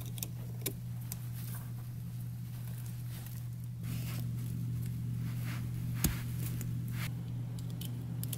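Plastic wiring-harness plug connectors of a diesel heater handled and pushed together, giving scattered small clicks with one sharper snap about six seconds in, over a steady low hum.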